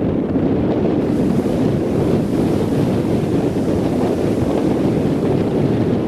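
Strong wind buffeting the microphone in a loud, steady rumble, with surf washing on the beach; a brighter hiss comes in about a second in.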